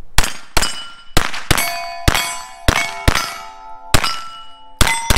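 About ten sharp metallic clangs at an uneven pace, each leaving a ringing tone that hangs on, several at different pitches as if different pieces of metal are struck.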